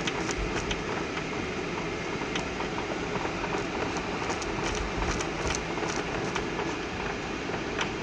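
Cabin noise of a Boeing 737-900 rolling on the ground: a steady rumble of engines and airflow, with scattered rattles from the cabin fittings and a few low thumps from the wheels.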